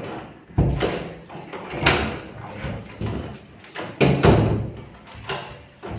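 A door being worked to test a newly installed lock: four sharp knocks and clunks of the door and latch, spaced irregularly.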